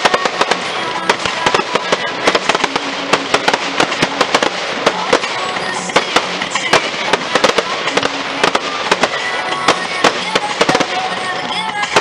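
Fireworks display: aerial shells bursting in rapid, irregular bangs and crackles, with music playing underneath.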